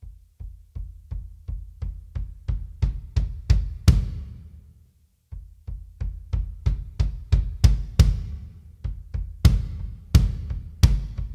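Electronic bass drum samples from an Alesis Strike Pro module, recorded direct and triggered by a UFO Drums eBridge kick trigger played with a double bass pedal. The strokes speed up from about three to five a second and grow louder. After about four seconds they stop and the last one rings out, then a second run of kicks starts with a few harder accents.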